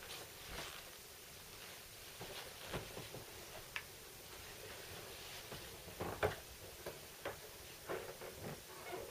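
Faint, irregular taps, knocks and rustles of a person moving about off camera, the loudest knock about six seconds in.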